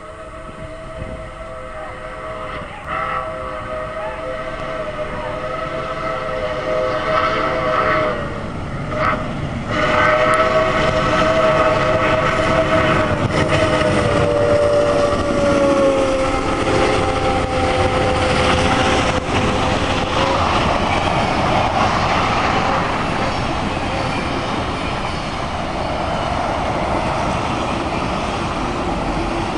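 Santa Fe 3751, a 4-8-4 steam locomotive, blowing its chime whistle in long blasts as it approaches, with two short breaks, and the chord drops in pitch as it goes by. The whistle then gives way to the steady rolling rumble and wheel-on-rail noise of the passenger cars passing close by.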